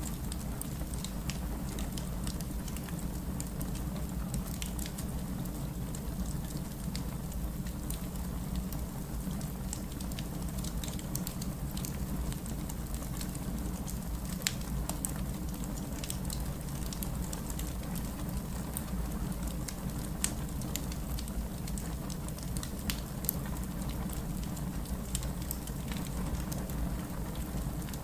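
Wood fire crackling in a fireplace: a steady low rumble of flames with scattered sharp pops and snaps throughout.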